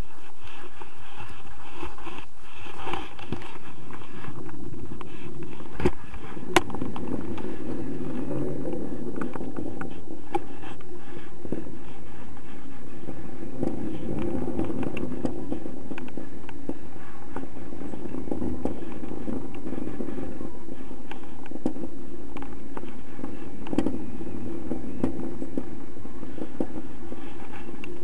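Steady wind rushing over the camera microphone in paraglider flight, with occasional clicks and knocks from the camera mount and harness, one sharp click about six seconds in.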